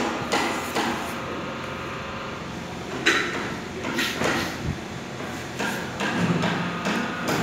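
Irregular knocks and clatter, several short sharp ones with the strongest about three seconds in, over a faint steady hum.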